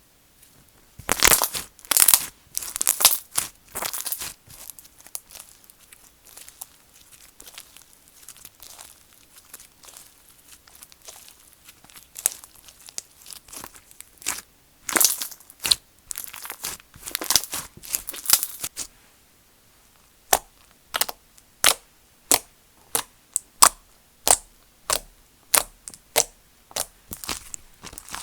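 Slime being squeezed, stretched and poked by hand: crackling, squishy bursts, then a regular run of sharp pops about one and a half a second, as air pockets in the slime are pressed and burst.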